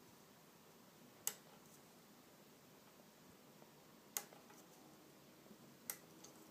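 A Lishi pick being worked in a Vauxhall HU100 car lock: three short, sharp clicks a second or two apart over faint room tone.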